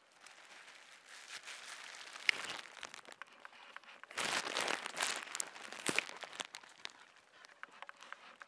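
Footsteps crunching on a dry, gritty dirt path, with crackling of dry grass and leaves; loudest a little after four seconds in.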